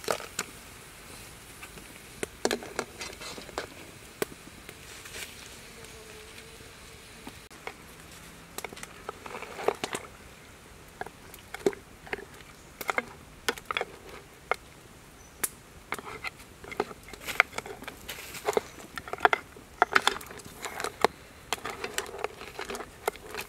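Whole crabs being stirred as they boil in a wok, a wooden spatula and hands knocking the hard shells against each other and the pan: scattered sharp clacks, sparse at first and much more frequent from about halfway on, over a faint steady background noise.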